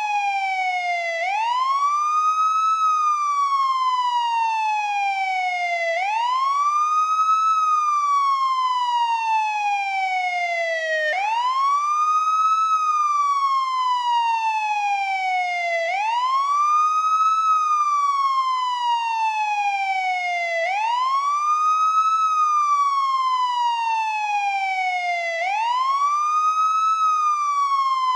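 American police siren on its wail setting: a single tone that rises quickly and then falls slowly, repeating about every five seconds at a steady level.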